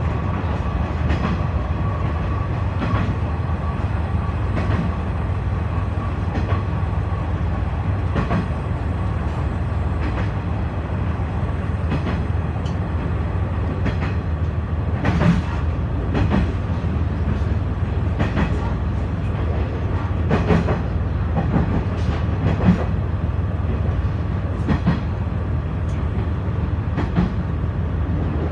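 KiHa 126 series diesel railcar running at speed, heard from inside the car: a steady low engine and running rumble, with irregular sharp clacks of the wheels over rail joints, more of them in the second half.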